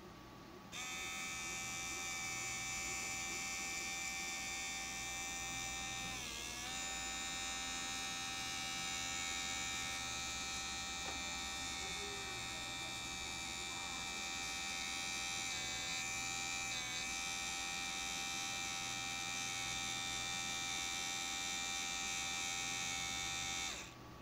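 Small DC motor running freely with a steady high-pitched whine. It starts about a second in, its pitch sags briefly a few times, and it cuts off suddenly just before the end.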